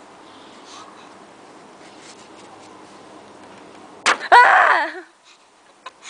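A knife cuts into a watermelon on a wooden bench, with a few faint soft knocks over low background noise. About four seconds in, a person lets out a short, loud, high-pitched squeal.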